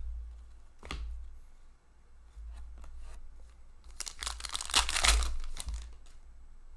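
A hockey trading card pack's foil wrapper torn open by hand: a crinkly ripping burst, loudest about five seconds in. A short light card tap about a second in.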